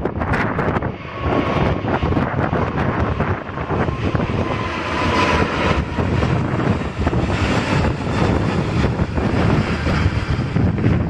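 Airbus A380's four jet engines at takeoff thrust as it climbs overhead: a steady rushing rumble that swells in the middle, with a faint whine. Gusts of wind buffet the microphone throughout.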